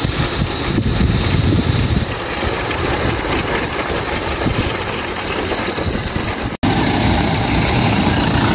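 A motor vehicle's engine running steadily under a constant high hiss. The sound drops out for an instant at a cut about six and a half seconds in.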